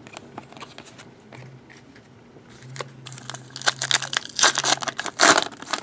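Trading card pack wrapper crinkling and tearing as a pack is opened and handled, quiet crackles at first, then louder, denser crinkling for the last few seconds.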